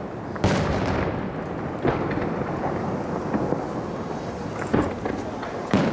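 Aerial firework shells bursting: four deep booms, the loudest about half a second in, each trailing off into a rolling, thunder-like rumble.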